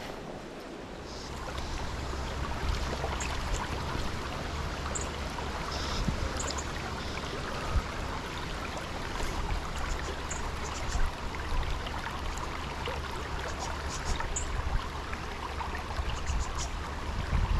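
Small creek running, a steady rush of flowing water.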